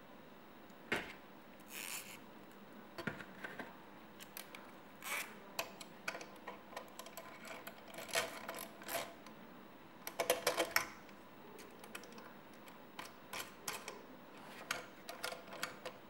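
Plastic side-release buckle clasps clicking and knocking against an aluminium paracord jig as they are handled and fitted onto its towers: scattered irregular clicks, with a quick run of rattling clicks about ten seconds in.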